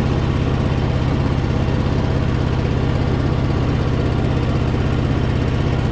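Small engine of the vehicle towing a drag over the dirt track, running steadily at an even low speed with no change in pitch.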